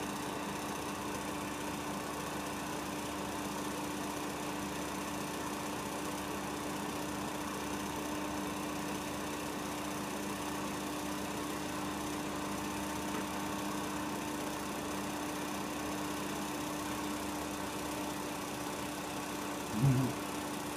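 8mm film projector running: a steady mechanical whir with a constant hum. A brief louder voice-like sound comes near the end.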